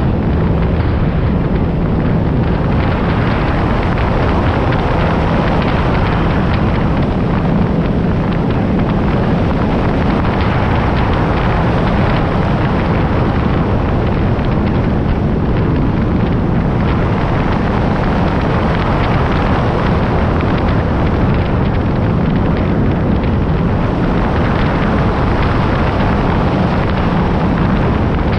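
Steady wind rush and road noise from a vehicle-mounted action camera travelling at highway speed on a wet road, with a low, even drone underneath.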